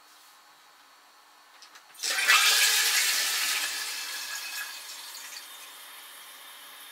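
Toilet flushing: a few faint clicks, then about two seconds in a sudden loud rush of water that fades over the next few seconds into the steady hiss of the tank refilling through the supply line. Played at double speed.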